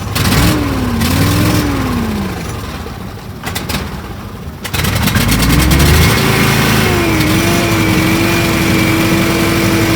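Argo amphibious ATV's engine running unevenly: it revs up and down, sags low and nearly dies around three to four seconds in, then picks up sharply and settles to a steady fast speed. The machine has been hard to start and keep running after sitting all winter.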